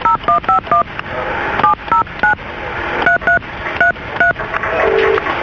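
Telephone keypad dialling: about eleven short touch-tone beeps in quick groups over line hiss, with a lower steady tone starting about five seconds in.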